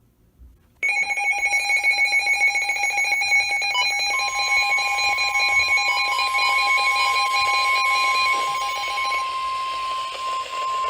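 Weather radio receiver's electronic alarm beeping in a rapid pulsing pattern, starting about a second in. About four seconds in it is joined by the steady 1050 Hz NOAA Weather Radio warning alert tone, which keeps sounding after the beeping stops near the end.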